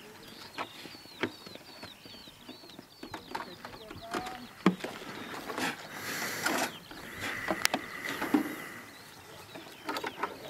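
A small bird calling in a run of short, high, down-slurred chirps, about two or three a second, that stops a few seconds in. Scattered light clicks and knocks come from hands and tools working on the model jet.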